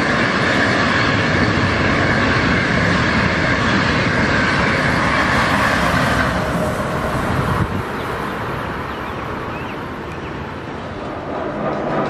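Electric-locomotive-hauled passenger train passing close by: a steady rumble of wheels on the rails, easing off a little about two-thirds of the way through.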